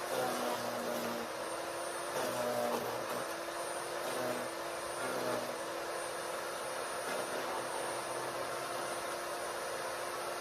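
Electric wood chipper running with a steady motor whine, grinding and chewing branches as they are fed in a few times during the first half.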